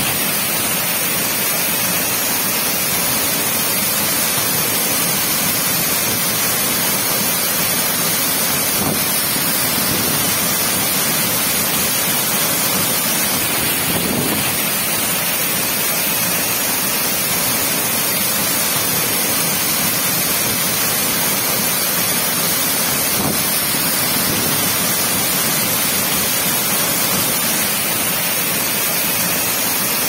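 Waterfall crashing onto boulders in its plunge pool, heard close up: a loud, steady rush of water.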